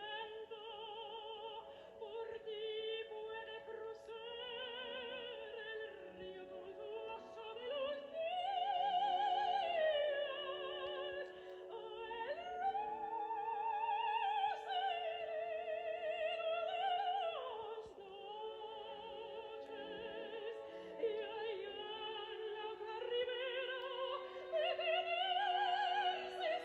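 Operatic-style singing in a high voice: long held notes with a wide vibrato that slide up and down, over steadier sustained lower notes.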